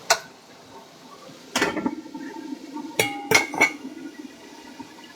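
About five sharp clinks and knocks of hard objects, spread over the few seconds with three close together near the end, a couple of them ringing briefly, like dishes or utensils being handled.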